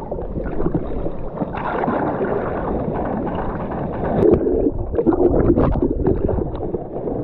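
Ocean water sloshing and splashing around a camera at the surface, muffled by its waterproof housing. About four seconds in a breaking wave washes over it, turning the sound into louder churning and bubbling water.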